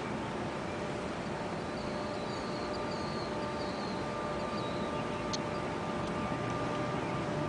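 Steady outdoor background noise with a faint steady hum under it; no siren sounds. A faint, high, wavering tone runs from about one and a half to four and a half seconds in.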